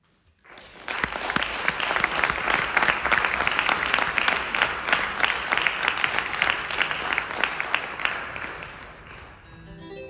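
Audience applauding. The applause breaks out about a second in, after a brief silence at the end of the music, and dies away near the end.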